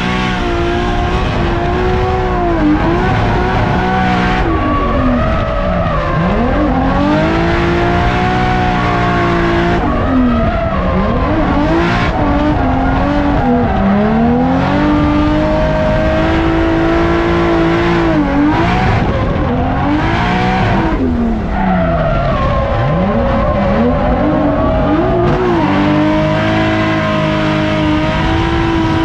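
Drift car engine at full throttle, its pitch climbing and then dropping away several times, with a sharp dip every few seconds as the revs fall and build again, over continuous tyre screech from sliding.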